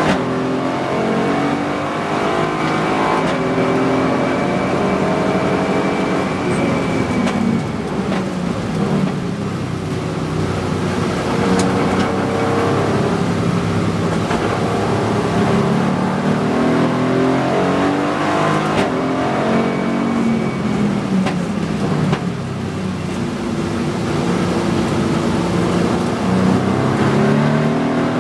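Aston Martin Vantage race car's V8 engine heard from inside the cockpit, its pitch falling and rising several times as the driver lifts and accelerates through the corners. A thin high whine sounds twice over the engine.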